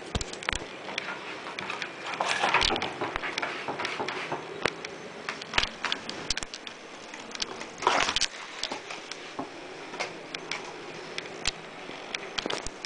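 A kitten scrabbling at and batting an empty cardboard drinks-multipack sleeve and scampering across cardboard and carpet: irregular scratching and rustling, with louder scraping spells about two seconds in and about eight seconds in, and scattered sharp clicks and taps.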